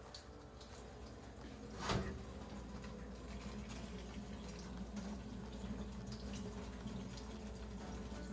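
Kitchen tap running into a stainless steel sink as a green pepper is rinsed under the stream by hand, with a brief loud splash about two seconds in and then a steady flow.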